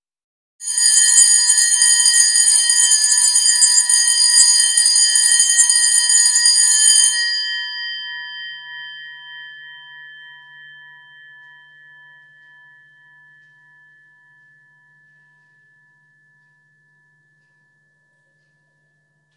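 Electric bell ringing continuously, hammer rattling on a metal gong, for about six and a half seconds. It cuts off and the gong rings on, fading slowly with a wavering tone until it dies out.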